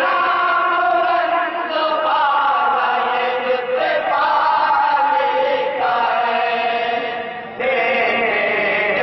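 A group of men chanting a naat in unison without instruments, in long held phrases that shift pitch every second or two, with a brief drop in volume about seven and a half seconds in.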